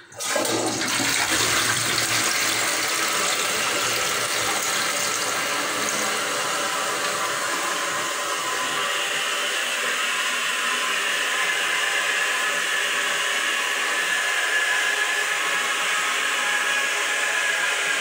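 Toilet flushing: a rush of water starts suddenly and keeps going steadily. A deeper rush in the first few seconds gives way to a higher, steadier hiss of running water.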